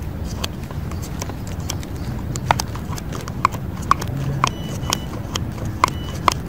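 Small scissors snipping maggots inside a small cup: sharp, irregular clicks, the loudest about one or two a second, over a steady low rumble.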